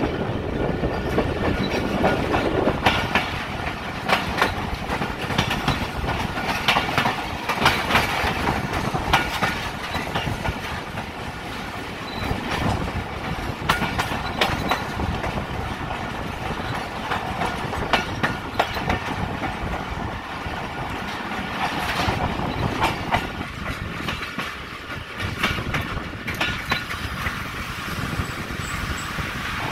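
Pakistan Railways passenger coach rolling along the track, heard from aboard at an open window: a steady rumble of wheels on rail with repeated sharp clacks as the wheels cross the rail joints.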